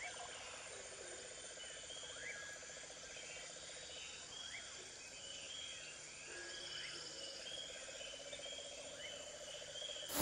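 Faint evening chorus of insects chirping in steady repeated pulses, with a lower pulsing trill and a few short rising calls.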